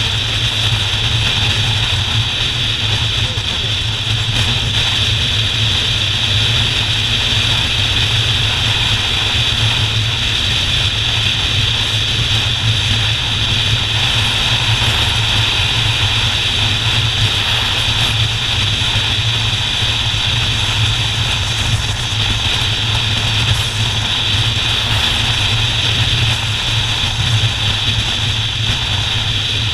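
Motorcycle engine running steadily at cruising speed, mixed with wind and road noise, at an even level with no gear changes or revving.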